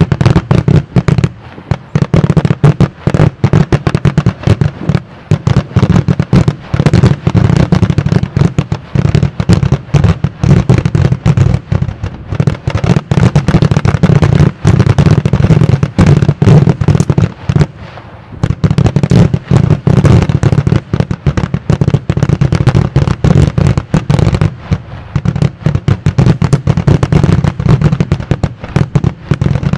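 Daytime fireworks barrage: a dense, rapid, continuous string of loud bangs from many shells bursting in white smoke, with a brief lull about 18 seconds in.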